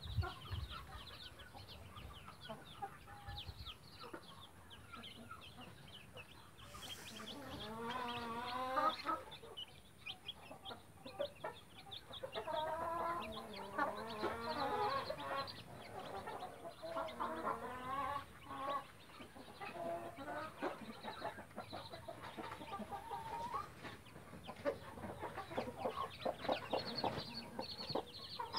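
A mother hen clucking to her brood in several runs of low, wavering calls. Her chicks peep steadily and high underneath.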